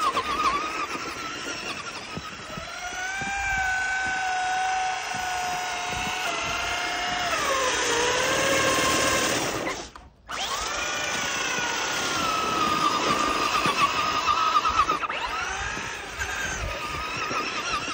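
Electric RC buggy's motor whining under throttle, its pitch rising and falling as the throttle changes. About ten seconds in it cuts out briefly, then whines up again.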